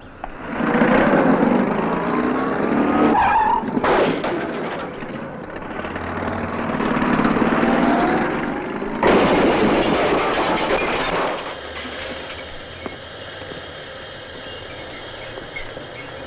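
Small car driven off hard with tyres squealing in long skids. About nine seconds in comes a loud crash of the car into a lamppost, and after it only faint steady tones.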